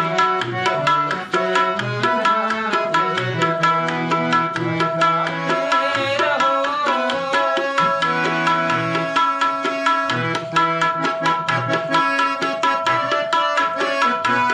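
Instrumental passage of a Hindi devotional song: harmonium holding steady notes over a fast, even tabla rhythm and a low bass line, with a short wavering melodic run about six seconds in.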